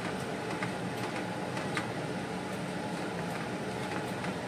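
Steady mechanical hum in the kitchen, with a few faint clicks from stirring the masala and water in the kadai.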